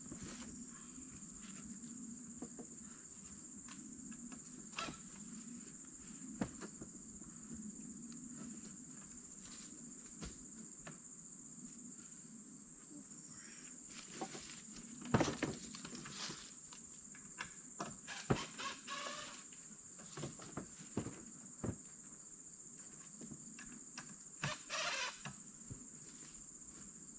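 Insects droning in a steady high-pitched chorus, with scattered short knocks and clicks, a few louder clusters of them about halfway through and near the end.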